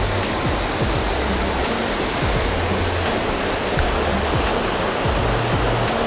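Steady rush of the Kōza waterfall and its rocky stream, a loud, even roar of falling water. Soft background music with low bass notes runs under it.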